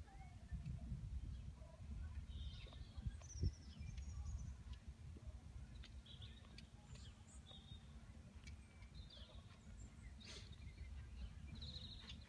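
Low wind rumble on the microphone with scattered short bird chirps throughout, and a single knock about three and a half seconds in.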